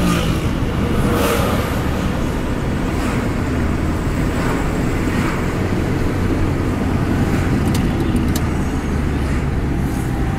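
City street traffic heard from inside a moving car: steady low engine and road rumble with other cars passing alongside, and a few brief clicks about eight seconds in.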